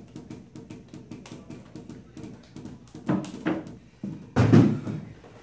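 Juggling balls thrown down and bouncing off a hard tile floor during a 7-ball force bounce pattern, a rapid, even run of knocks about five a second, then a few louder, irregular knocks after about three seconds.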